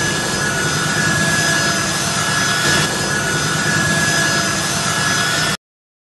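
Turbofan jet engines of a C-17 Globemaster III transport aircraft running as it rolls along the tarmac: a loud, steady roar with a high whine over it. The sound cuts off suddenly near the end.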